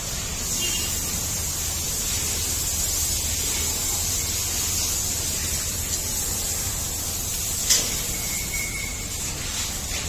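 Buffalo milk squirting by hand into a frothy steel pail, a steady spraying hiss. One sharp click about three-quarters of the way through.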